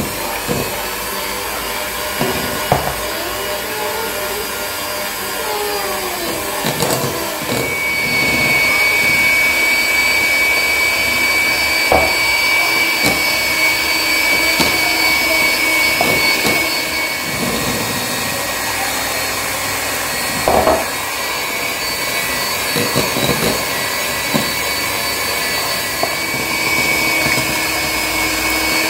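Electric hand mixer running steadily, its beaters creaming butter with eggs and sugar in a large bowl. A higher whine comes in about eight seconds in, and there are a few sharp knocks.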